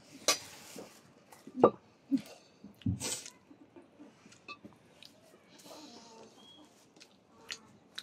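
Scattered clinks and knocks of dishes and utensils at a meal: a few sharp taps in the first three seconds, then fainter ticks.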